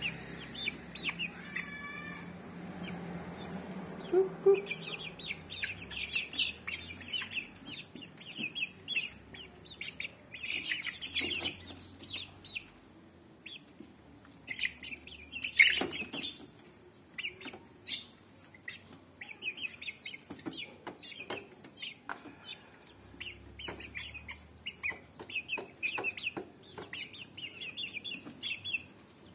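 Young Rhode Island Red chickens peeping and clucking, many short high calls in quick runs. A few sharp knocks come in between, the loudest about halfway through.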